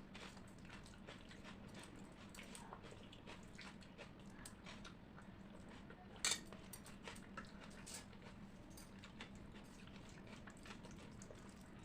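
Close-up eating sounds of a person chewing a mouthful of rice and curry: soft wet chewing and lip smacks with many small clicks, and one sharper click about six seconds in. A faint steady low hum runs underneath.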